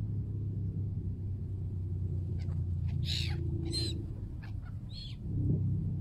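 Seagulls calling: a quick run of five or six short, high calls from about halfway through, over a low steady drone.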